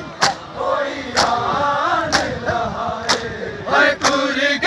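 Men's voices chanting a noha (Shia lament) together, with a sharp, unison slap of hands on bare chests (matam) about once a second.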